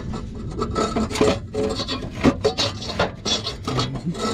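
Irregular scraping and rubbing, many short scrapes and knocks in quick succession.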